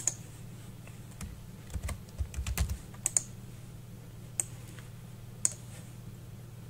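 Computer keyboard keystrokes and mouse clicks, scattered: a short run of several clicks about two to three seconds in, then single clicks about a second apart. A steady low hum runs underneath.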